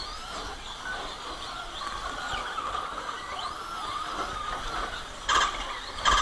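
Electric motors of Traxxas Slash RC short-course trucks whining as they race, the pitch rising and falling with the throttle. Two short, louder bursts come near the end.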